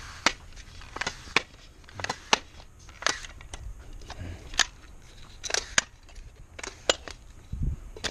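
Aluminium telescoping ladder being extended by hand, its sections sliding out and snapping into place with repeated sharp metallic clicks and clacks at irregular intervals.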